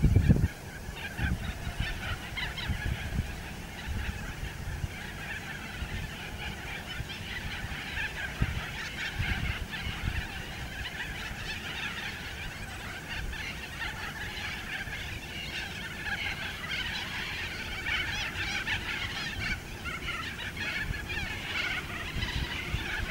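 A chorus of birds calling with many short, overlapping squawks, over an uneven low rumble like wind on the microphone that is strongest in the first half-second.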